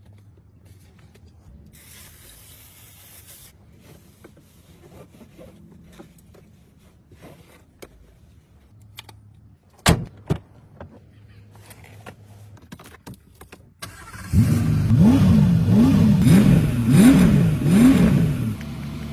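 Mercedes-Benz W126 engine starting after an oil and filter change, then running with its pitch rising and falling five or so times as it is revved. Before it, a few faint clicks and one sharp knock.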